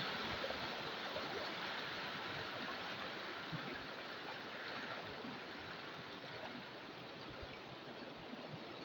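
River water rushing and splashing steadily, slowly getting a little quieter.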